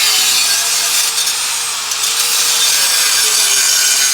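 Angle grinder cutting into the steel of a car's silencer: a loud, steady grinding hiss with the motor's whine wavering under load.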